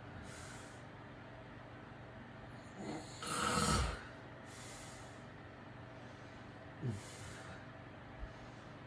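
A man snoring in his sleep: one loud snore about three seconds in, followed by a breathy exhale, with a shorter, quieter breath sound near seven seconds. A faint steady hum lies underneath.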